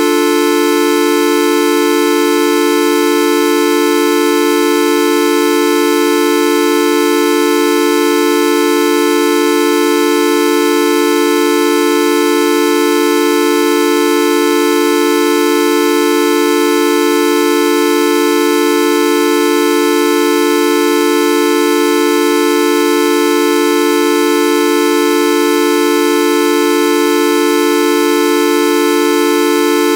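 A loud, steady, horn-like buzzing tone from the 'Videoup V1.2' sound effect, held at one pitch and level without a break.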